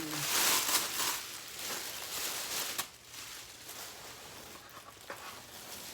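Packaging being handled and rustled while parts of a new electric grill are unwrapped, loudest in the first second and a half, with a sharp click a little before the halfway point.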